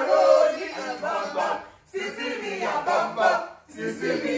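A group of voices singing and chanting a nursery rhyme together, loud and overlapping, breaking off briefly twice between phrases.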